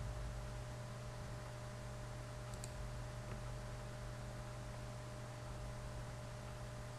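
Steady low electrical hum and hiss from the recording setup, with a couple of faint mouse clicks a little before the middle.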